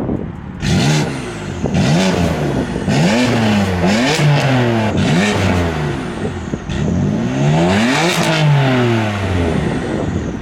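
A car engine revved in quick repeated blips, about seven times, each climbing sharply in pitch and dropping back toward idle.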